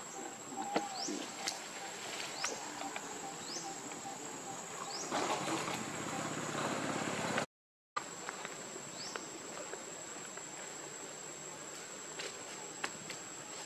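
Outdoor ambience: a steady high-pitched insect drone with a few short high chirps and clicks, and a louder rustling hiss about five seconds in. The sound cuts out completely for a moment about halfway.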